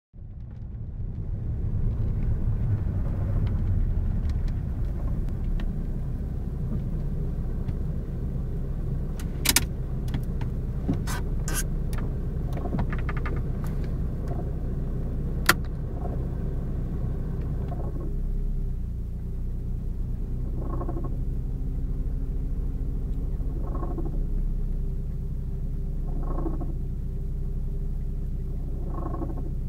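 Saab 9-3 engine running steadily, with a few sharp clicks in the middle. From about twenty seconds in, a strange noise from the engine compartment comes and goes about every three seconds: the sign of a worn clutch bearing on the air-conditioning compressor.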